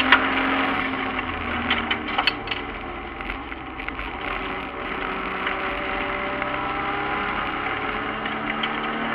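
Toyota 1JZ-GTE VVTi turbocharged inline-six in a BMW E36 race car, heard from inside the stripped cabin under racing load. The engine note drops over the first two seconds and then climbs slowly, with sharp knocks and rattles from the bare cabin in the first two and a half seconds.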